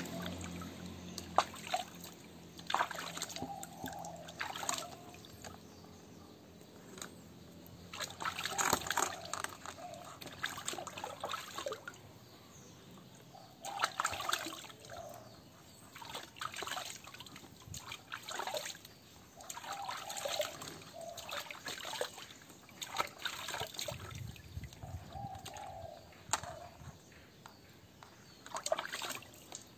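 Water in a plastic basin splashing and trickling as a hand scoops it up and pours it over a wet puppy, in repeated short bursts every second or two.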